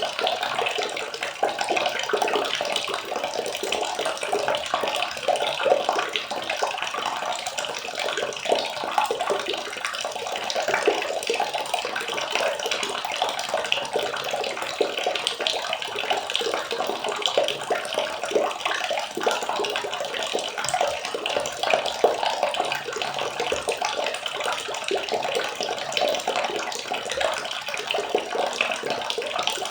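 Water running and splashing steadily, with a continuous patter of small splashes.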